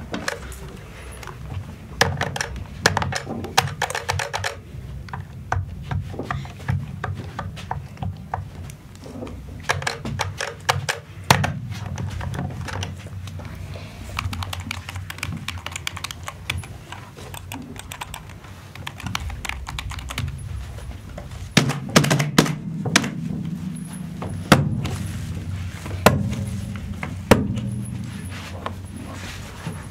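Kitchen utensils and dishes being handled: a busy, irregular clatter of knocks and clinks, some of them ringing briefly.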